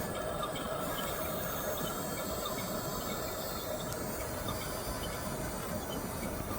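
1/16-scale RC bulldozer with its drive motor eased off: a faint high whine and light ticking over a steady hiss.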